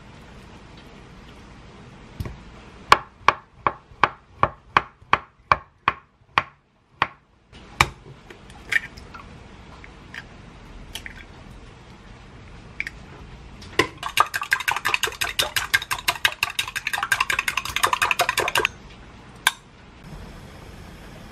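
Knife slicing avocado on a wooden cutting board, about a dozen even taps at roughly three a second. Then a few single taps as eggs are cracked on a glass measuring cup. Then about five seconds of rapid clicking as two eggs are beaten in the glass cup, stopping suddenly.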